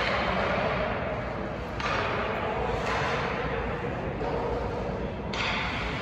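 Ice hockey rink ambience during practice: a steady wash of noise from skates on the ice, with occasional knocks of sticks and pucks.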